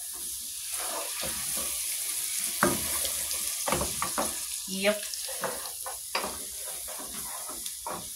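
Food sizzling in hot oil in a cooking pot while being stirred with a spoon: a steady frying hiss broken by scrapes and knocks of the spoon against the pot, the loudest about two and a half seconds in and again about five seconds in.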